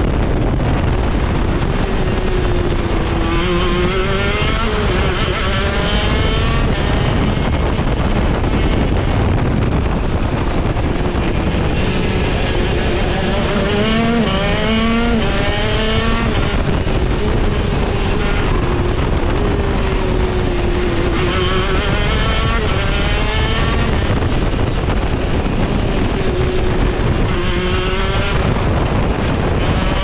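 Shifter go-kart's two-stroke engine at racing speed, its pitch climbing in four spells of hard acceleration, one of them in several quick steps as it shifts up through the gears. A steady rushing noise runs underneath.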